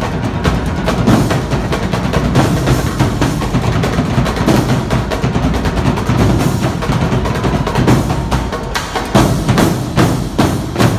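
Fast, dense drum cadence: rapid snare and wood-block-like clicks over a steady bass drum.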